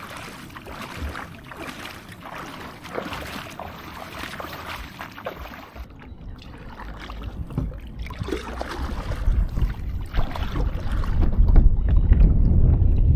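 Water splashing as a man in waders wades through shallow water, towing a kayak by its rope. About six seconds in the splashing gives way to wind buffeting the microphone, growing louder toward the end.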